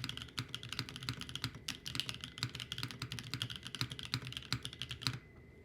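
Mechanical keyboard fitted with Taro N Sweet Potato V2 linear switches (52 g springs, factory lubed), typed on quickly in a dense run of keystrokes that stops about five seconds in.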